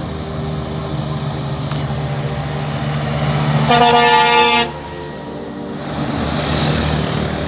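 Heavy tractor-trailer truck's diesel engine running steadily under load, then a truck horn sounds once for about a second, in the middle, and cuts off sharply. The road noise swells again near the end as another truck passes close.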